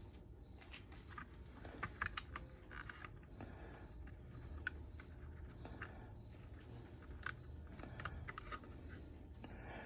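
Faint, irregular light clicks and taps of small plastic latch parts being handled and test-fitted together by hand, over a low steady background hum.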